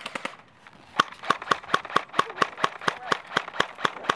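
Airsoft rifles firing: a fast automatic burst that ends about half a second in, then, about a second in, a long even string of sharp shots at about four or five a second.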